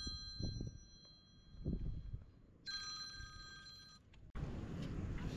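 Mobile phone ringing with an electronic ringtone of steady high tones. It fades out briefly, rings again for about a second and a half, then stops. A steady outdoor rush of noise sets in suddenly near the end.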